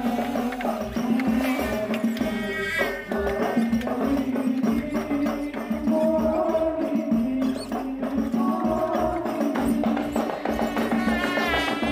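Music: a wavering melody over a held low tone, with a steady beat of hand percussion and jingles.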